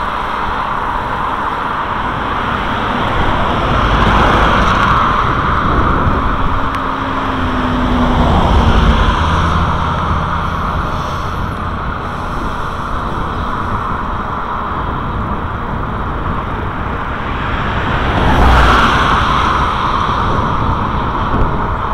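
Road traffic: cars passing close by in the next lane, with swells in the noise about four, eight and eighteen seconds in, over a steady rush of road noise.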